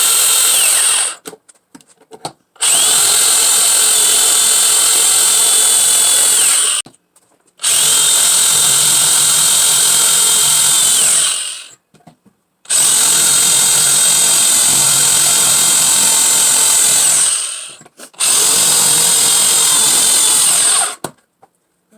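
Black & Decker drill boring a hole into a wooden piece in five runs of a few seconds each, with short pauses between them. Each run is a steady whine that drops in pitch as the trigger is released and the motor winds down.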